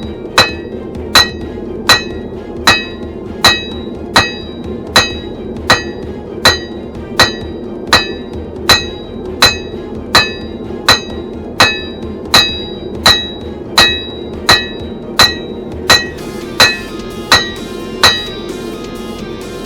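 Blacksmith's hammer striking hot steel on an anvil in a steady rhythm, about one ringing blow every 0.7 s, stopping near the end. A steady roar from the forge runs underneath.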